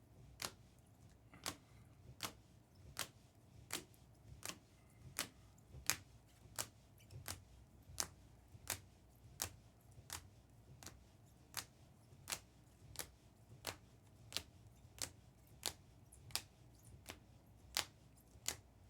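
A long run of sharp, light clicks or taps at an even pace, about three every two seconds, over a faint low room hum.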